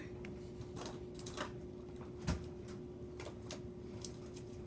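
A few light clicks and taps, with one sharper knock a little over two seconds in, over a steady low hum.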